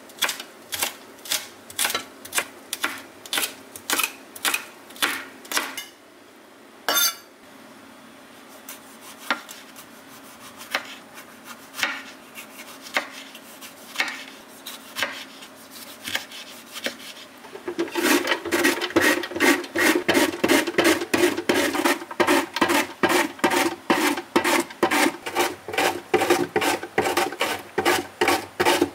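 A chef's knife chopping herbs on a wooden cutting board in steady strokes, then slicing a tomato with slower single cuts. About eighteen seconds in, zucchini is rubbed over a julienne grater into a plastic container: a louder, quicker scraping rasp at about three strokes a second.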